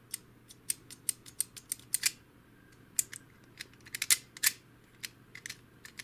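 Irregular sharp plastic clicks and snaps from a small spring-loaded plastic lever assembly out of an HP DeskJet 2130 printer, worked back and forth by hand. The loudest clicks come in a cluster about four seconds in.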